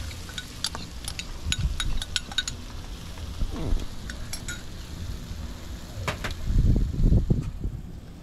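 Spoon clinking and scraping against a cup as curry masala paste is scraped out into a pot, a run of quick light clinks in the first couple of seconds and a few more about four seconds in. A low rumbling noise comes about six seconds in.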